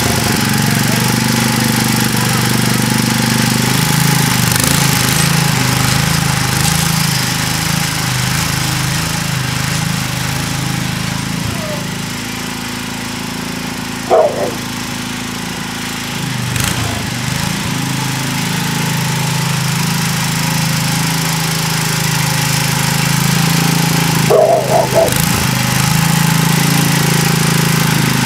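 Sears ST16 garden tractor engine running steadily while plowing garden soil, its hum swelling and easing a little as the load changes. Two short, sharp higher-pitched sounds cut in, about halfway through and again near the end.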